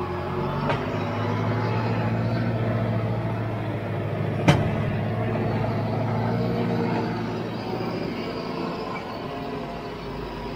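Valtra C120 tractor's diesel engine running steadily while towing a slurry tanker, heard from just behind the cab, with a single sharp knock about four and a half seconds in.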